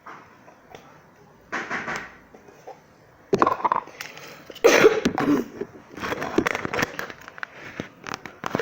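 Sticky slime being squeezed and pulled apart by hand, in several short squelching bursts with small wet pops and crackles.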